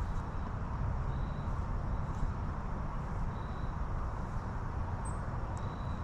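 Outdoor backyard ambience: a steady low rumble with a faint, short high note that repeats about every two seconds.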